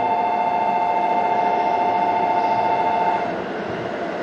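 Train horn sounding a steady two-tone blast that cuts off about three seconds in, over the continuous rumble of the train running on the rails.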